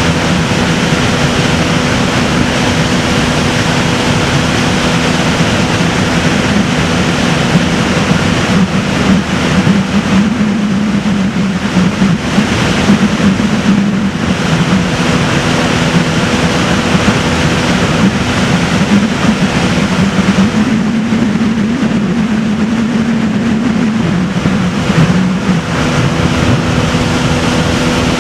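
Boat motor running steadily under way, its hum holding one pitch with small wavers, over water and wind noise.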